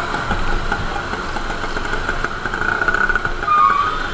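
Motorcycle engine running at low speed amid dense city traffic, heard through a helmet-mounted action camera's microphone. A brief high beep sounds about three and a half seconds in.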